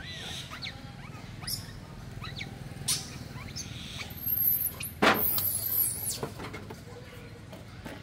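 Baby macaque giving short, high, rising squeaks about once a second, with thin, very high squeals near the middle. A sharp knock about five seconds in is the loudest sound.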